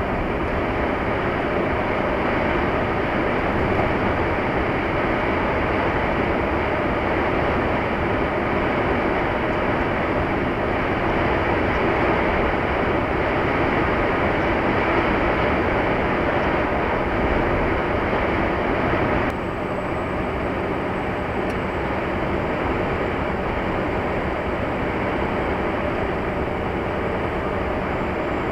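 Steady road and engine noise of a moving car, with a small sudden drop in level about two-thirds of the way through.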